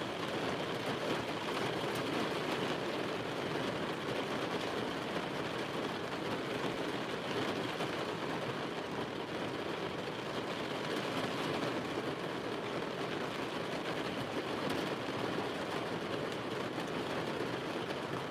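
Heavy rain falling steadily on a vehicle's roof and windows, heard from inside the cab as an even, unbroken patter.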